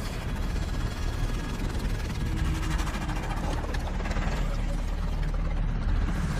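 Sound effect of dark magical energy pouring out: a dense, steady rumbling that grows a little louder toward the end.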